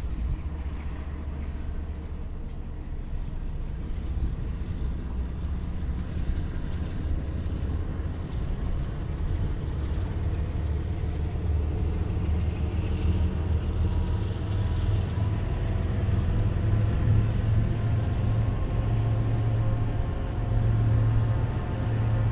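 A string of BNSF diesel-electric locomotives running, a deep steady engine rumble that grows louder from about halfway through.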